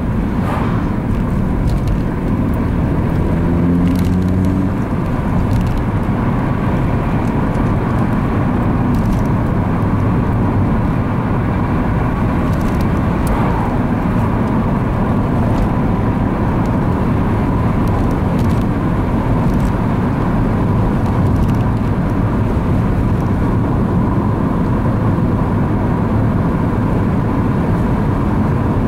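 Steady road and engine noise inside a 2006 Opel Astra Coupe driving at road speed. A pitched engine note rises briefly about three seconds in.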